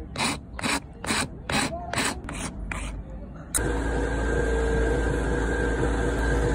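Hand file rasping back and forth on a wooden knife handle, about two and a half strokes a second. A little over halfway in the filing stops and an electric power tool's motor starts suddenly and runs steadily.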